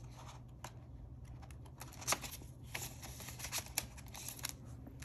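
Paper banknotes and a clear plastic zipper pouch being handled: rustling and crinkling with many small, sharp clicks.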